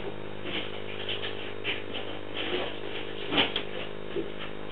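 Steady electrical hum on a CCTV camera's audio feed, with a few short faint clicks and knocks over it, the sharpest about three and a half seconds in.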